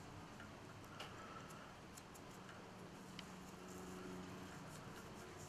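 Faint snips of small scissors trimming a deer-hair fly body, one about a second in and a softer one near three seconds, over a low steady room hum.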